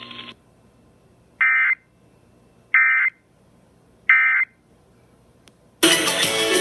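Three short bursts of Emergency Alert System end-of-message data tones, about a second and a half apart, marking the end of the alert. A steady hum cuts off just after the start, and radio music starts abruptly near the end.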